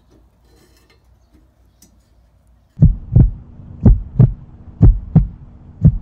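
Heartbeat sound effect: a low hum with loud double thumps (lub-dub) about once a second, starting about three seconds in, used as a suspense cue.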